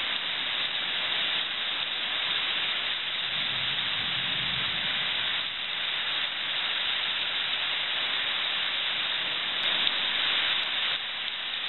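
Heavy thunderstorm rain pouring down in sheets, a steady, dense hiss.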